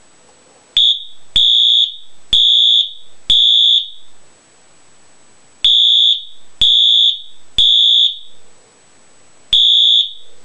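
Wheelock MT24-LSM fire alarm horn sounding the code 3 (temporal three) pattern: three loud, high-pitched half-second blasts, a pause, then the group of three again. The first group begins with an extra short blip, which the owner puts down to the battery slipping off its wire rather than to the horn itself.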